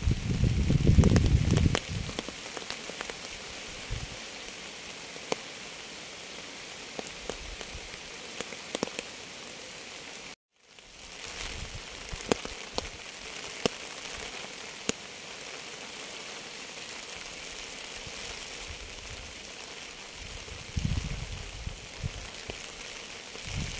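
Steady rain with individual drops ticking sharply on a surface close by. A low rumble sits under it in the first two seconds and again near the end, and the sound cuts out briefly about ten seconds in before fading back up.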